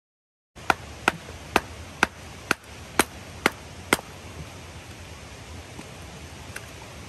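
Firewood being chopped or split for kindling: eight sharp strikes about two a second, then they stop, with one lighter knock near the end.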